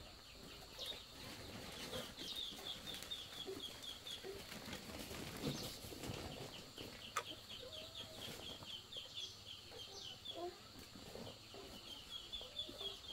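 Chickens clucking faintly, with several runs of quick, high peeping calls repeating several times a second.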